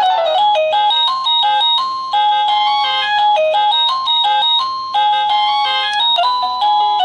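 AVANTEK wireless doorbell chime receiver playing one of its built-in electronic melodies, a quick run of plain single notes. The tune is briefly broken by a click about six seconds in.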